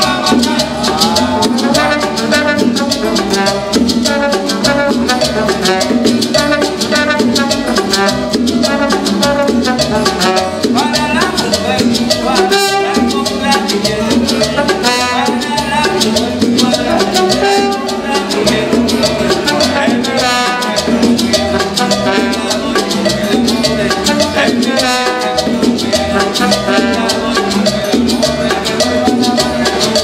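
Live traditional Cuban son played by an acoustic band: strummed guitars, double bass, bongos, maracas and a brass horn, with voices singing over the steady dance rhythm.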